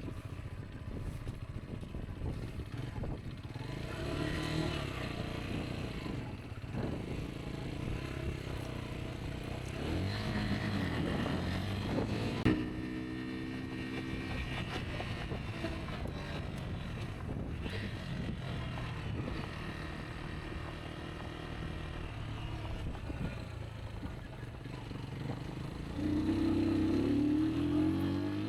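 Rieju Aventura 125's single-cylinder four-stroke engine running on the move, its pitch rising and falling with the throttle. There is a sharp knock about twelve seconds in, and the engine gets louder with rising revs near the end.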